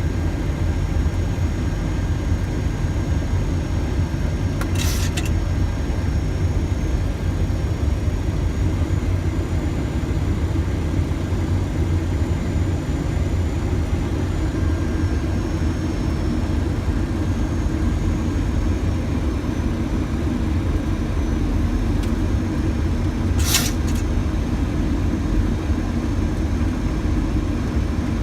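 Boeing 737 flight deck on final approach: steady low rumble of airflow and engines with faint high whines, broken twice by a brief burst of hiss.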